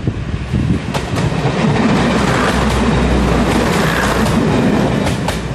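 Class 101 diesel multiple unit passing close by: a steady rumble from its diesel engines and wheels that swells to its loudest about three to four seconds in, with a few sharp clicks of wheels over rail joints.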